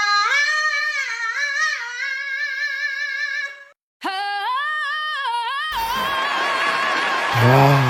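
A cartoon voice singing high, wavering wordless notes in two phrases, with a brief break about three and a half seconds in. Then a rushing hiss takes over, and a low voice comes in near the end.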